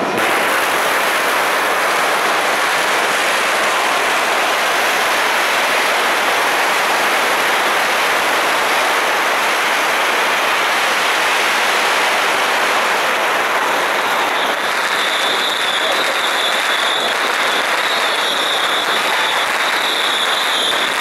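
Long strings of firecrackers going off in a continuous, dense crackle. A steady high-pitched tone joins in about two-thirds of the way through.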